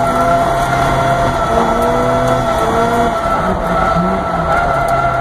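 Mazda RX-7 FC's 13B rotary engine running while the car drives, heard from inside the cabin, its pitch stepping slightly up and down.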